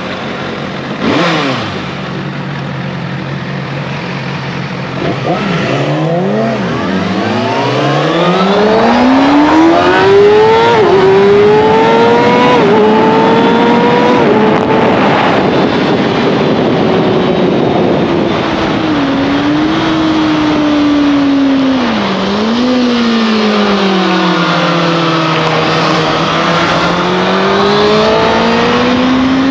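Motorcycle engine running steadily at first, then about six seconds in revving up through the gears, its pitch climbing and dropping back at each quick upshift. It then eases off and picks up again, over a steady rush of wind and road noise. A short sharp knock sounds about a second in.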